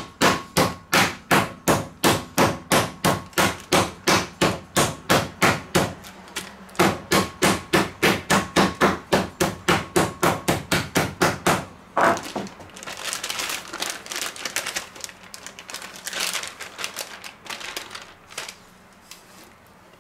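Metal meat tenderizer mallet pounding chicken breast through a plastic freezer bag on a wooden cutting board, flattening the fillet, at about three blows a second, in two runs with a short break about six seconds in. From about twelve seconds in the blows stop and the plastic bag rustles and crinkles as it is handled.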